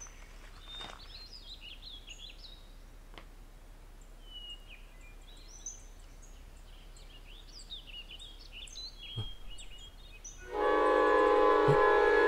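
Quiet forest ambience with birds chirping and a couple of soft thuds. About ten and a half seconds in, a loud sustained chord of dramatic film-score music cuts in suddenly.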